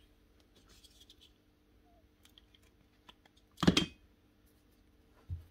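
Small metal clicks as a steel connecting rod is handled, with one louder metallic clank about two thirds of the way through, over a faint steady hum.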